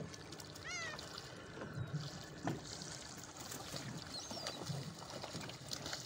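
A gull calling briefly about a second in, a quick string of rising-and-falling mewing notes, with a fainter call near the middle, over water lapping and splashing at the boat.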